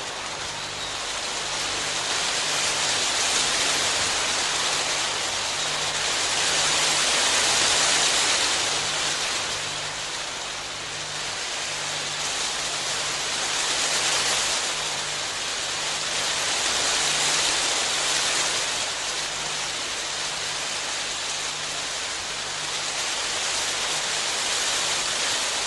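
Heavy rain falling steadily as a dense hiss that swells and eases every few seconds.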